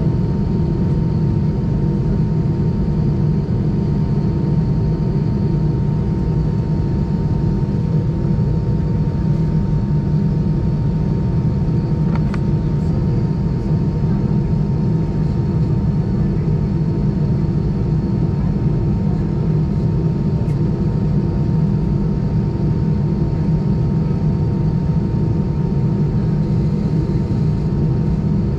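Airbus A320 cabin noise on the ground: a steady low rumble from the engines at idle and the airflow, with a thin steady whine running through it. A brief click about twelve seconds in.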